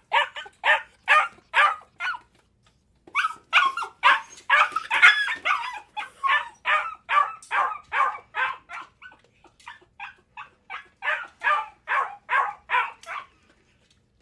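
A dog barking in quick repeated barks, about two to three a second, with a short pause about two seconds in; the barking stops about a second before the end.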